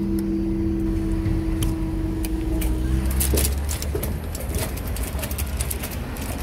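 Level crossing barrier mechanism humming steadily as the barriers rise, cutting off about three seconds in as the booms reach the raised position. A low rumble and scattered crackling clicks follow.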